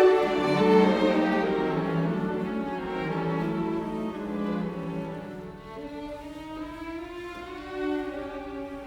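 Background music played on bowed strings, violin and cello holding slow sustained notes.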